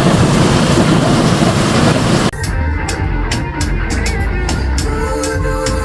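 Loud, even rushing noise for about two seconds, then an abrupt cut to music with drum hits and held notes.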